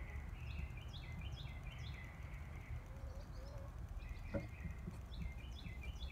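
A bird singing rapid runs of short chirping notes in two phrases, the second starting about four seconds in, over a steady low background rumble. A single faint tap comes partway through.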